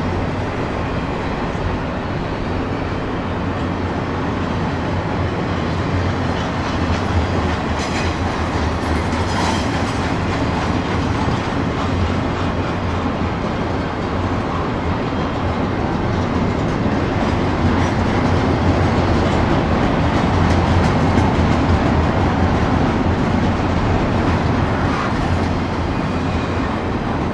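CSX double-stack container train rolling past at about 30 mph: a steady rumble and rattle of the cars on the rails, with a few sharper clacks from the wheels about eight and nine and a half seconds in.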